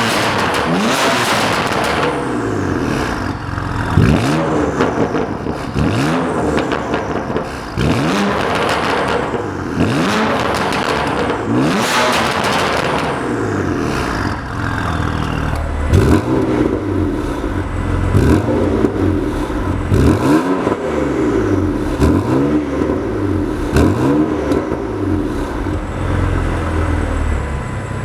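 BMW S55 twin-turbo straight-six breathing through an aftermarket exhaust, revved in a series of short throttle blips. Each blip rises and falls in pitch, about one every two seconds, with a short pause around the middle.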